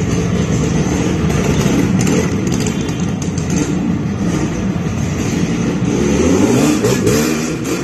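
Yamaha RD350 HT's air-cooled two-stroke parallel-twin engine running as the motorcycle is ridden at low speed, the revs rising and falling several times near the end.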